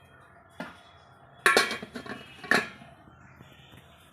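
Spoon clinking against metal dishes in about three sharp knocks, each with a short ring, as food is dished out.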